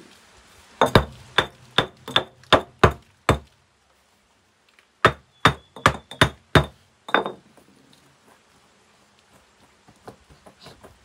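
A hand tool striking in two runs of about seven blows each, two to three a second, with a short pause between. Many blows leave a faint metallic ring.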